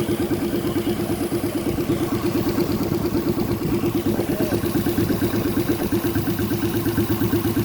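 Custom motorcycle powered by a 1000cc car engine, idling steadily with an even, fast exhaust pulse.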